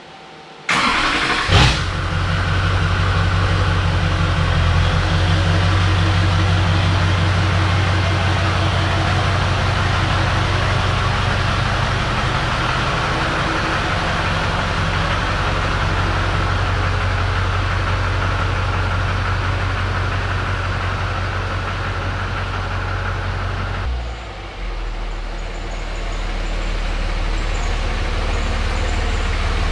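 A pickup truck engine starts about a second in, then runs steadily as the truck is driven off. At about 24 seconds that engine drops away and a second truck's diesel engine comes in, running steadily as the Dodge Ram pulls in.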